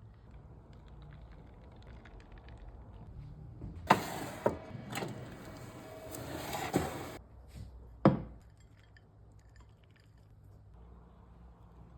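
Kitchen utensils and dishes clinking and knocking during food preparation: about three seconds of clatter with several sharp clicks, then one sharp knock.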